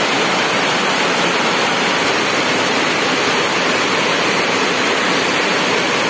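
Heavy rain pouring down in a storm: a steady, loud hiss of rain on the ground and on water-filled basins and buckets.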